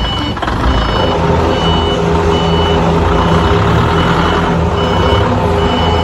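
Hangcha forklift's back-up alarm beeping steadily, a high beep a little faster than once a second, over the forklift's running engine.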